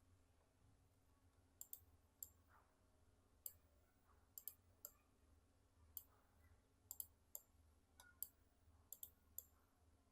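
Computer mouse clicking: about fifteen short, sharp clicks, some single and some in quick pairs, at irregular intervals over near-silent room tone.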